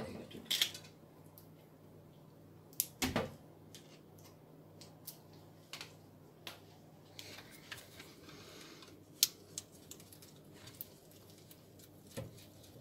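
Scattered clicks and light knocks of plastic tubing and push-fit connectors being handled on an under-sink water purifier, with a soft rustle lasting about two seconds from about seven seconds in.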